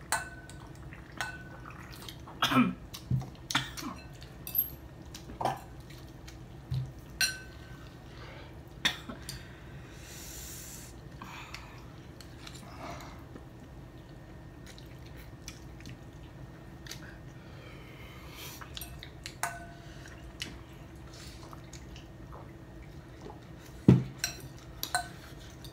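Forks clinking and scraping against ceramic bowls, with slurping and chewing as two people eat spicy noodles fast. A loud knock about 24 seconds in.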